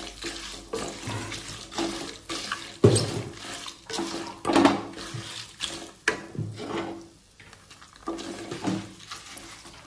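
A wooden spatula stirring toor dal and dried red chillies roasting in a non-stick kadai. The spatula scrapes the pan in irregular strokes and the dry lentils rattle and rush over its surface.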